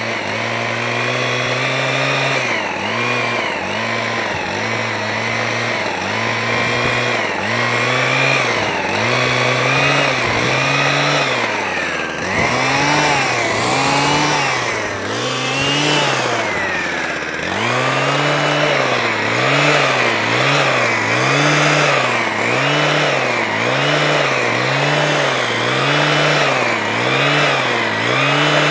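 Small petrol hedge trimmer engine running under load, its pitch rising and falling about once a second as the throttle is squeezed and eased while cutting. For a few seconds in the middle it slows into longer, deeper dips before picking up the quicker rhythm again.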